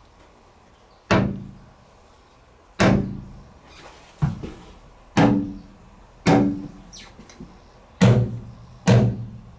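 Bare steel wheel-well panel of a Ford Transit van struck seven times, each knock ringing briefly with a low metallic tone. The ringing is panel vibration from metal not yet covered with sound deadener.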